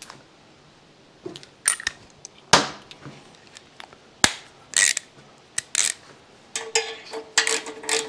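Metal clicks and clinks of hand tools working a stiff, oiled bolt into an aluminum part, tight but not stripped. A run of quick clicks starts near the end.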